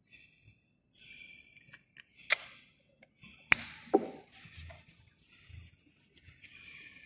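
Communion vessels being handled on an altar: a few small clicks and knocks, the three sharpest in the middle, over faint rustling.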